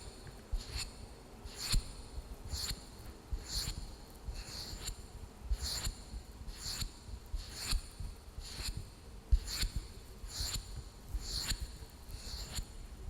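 Fingernails making short, scratchy strokes on a wooden lid, about one a second, with faint low knocks of the wood under them.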